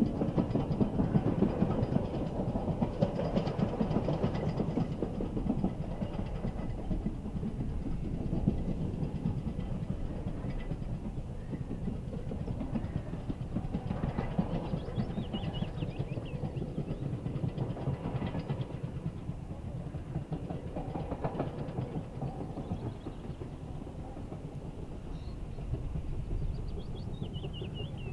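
LMS Black Five 4-6-0 steam locomotive running light engine, heard at a distance as a steady rumble of exhaust and wheels on the rails.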